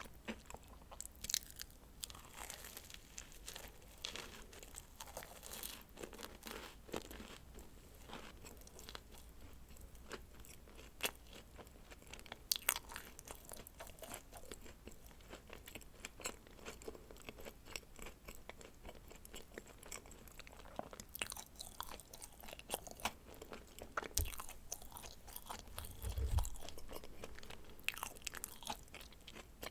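Someone biting and chewing dacquoise: irregular crisp crunching clicks with soft chewing between them. A low bump comes near the end.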